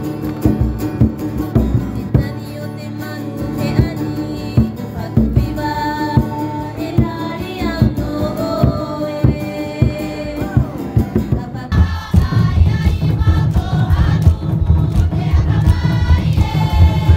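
Music of group singing over regular drum beats. About twelve seconds in it cuts abruptly to a fuller, deeper mix.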